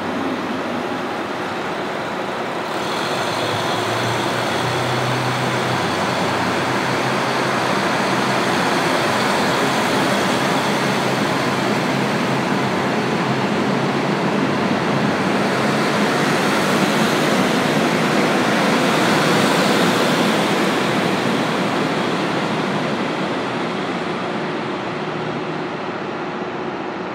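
KiHa 183 series diesel multiple unit (North Rainbow Express) pulling out of a station. Its diesel engines throttle up sharply about three seconds in, and the cars run loudly past over the rails. The sound eases off near the end as the train moves away.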